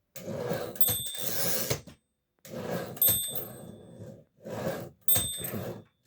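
Erika S portable typewriter carriage run along its rails three times under its mainspring, each run a ratcheting clatter with one ding of the end-of-line bell partway through.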